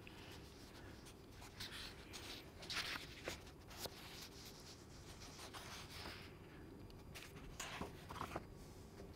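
Pages of a paperback book being leafed through: faint, irregular paper rustles and flicks over a low room hum.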